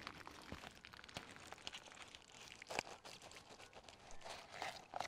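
Mostly quiet, with a few faint, scattered rustles and light clicks of gloved hands handling soil and a plastic seedling cup; the clearest comes a little under three seconds in.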